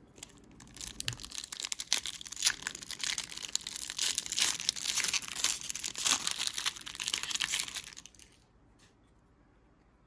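Plastic wrapper of a trading-card pack crinkling and being torn open: a dense crackle that starts about half a second in and stops about eight seconds in.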